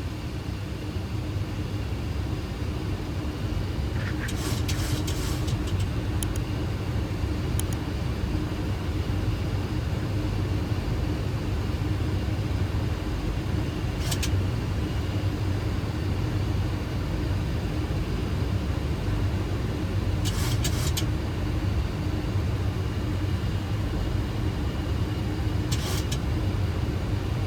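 Boeing 737 flight deck noise on final approach with the landing gear down and flaps at 30: a steady rumble of airflow and engines with a low hum, broken by a few brief crackles.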